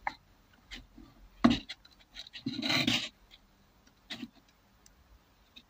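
Handling noise: a few light knocks and clicks, the loudest about one and a half seconds in, and a brief rubbing scrape about two and a half seconds in.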